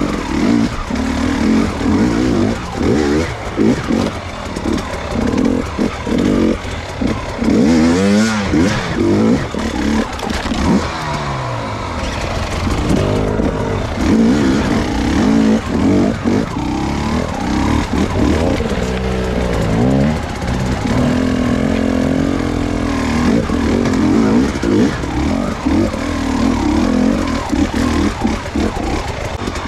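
Enduro dirt bike engines revving up and down, the throttle opened and closed again and again, at times more than one engine at a different pitch.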